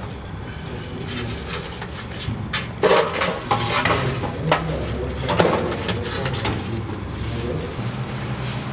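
Knocks and clatter of bakery work, several sharp hits in the middle of the stretch, over a steady hum and faint voices.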